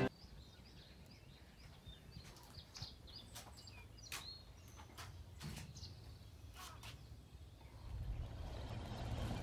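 Quiet outdoor ambience with small birds chirping now and then, and a few scattered sharp clicks. A low steady rush grows louder about eight seconds in.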